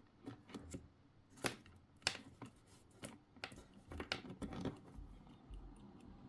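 A series of irregular sharp clicks and light scrapes, about a dozen over several seconds, fading out near the end.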